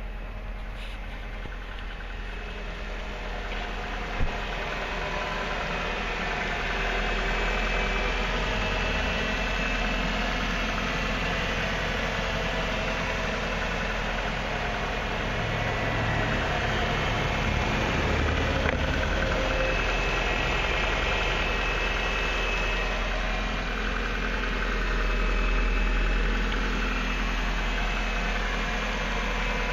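A 2001 Ford Focus 2.0L Split Port four-cylinder engine idling steadily, with one short click about four seconds in.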